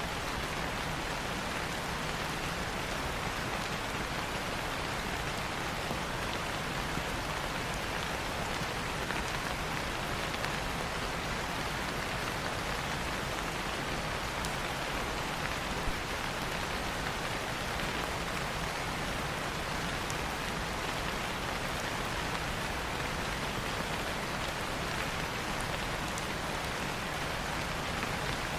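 Steady rain falling, an even hiss that does not change, with a few faint isolated clicks and one slightly louder tick about sixteen seconds in.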